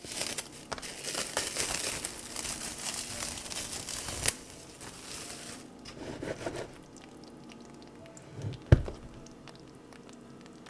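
Plastic cling wrap crinkling as it is peeled off a bowl for about four seconds, ending in a sharp click, with quieter rustling after. A single dull thump comes about three quarters of the way through.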